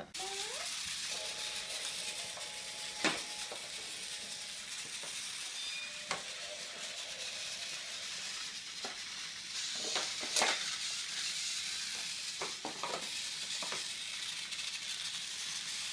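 Battery-powered Trackmaster toy train motor running with a steady high whirring hiss, broken by a few sharp clicks.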